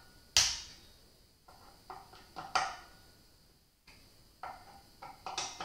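Steel T-handle hex key clinking against the brake disc's mounting bolts as each bolt is checked for tightness: a string of about seven sharp metallic clicks, the loudest about half a second in, some leaving a faint ring.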